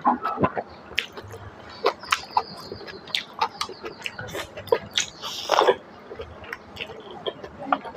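Close-up eating sounds of a person chewing pork trotter and rice by hand: wet smacking and sharp clicks of lips and mouth, with a longer louder sucking slurp a little past the middle.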